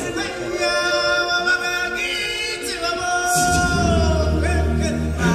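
Live stage-show music: singers in chorus holding long notes, with a deep bass coming in about three and a half seconds in.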